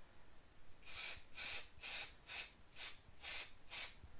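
Aerosol spray-paint can hissing in about seven short bursts, roughly two a second, starting about a second in.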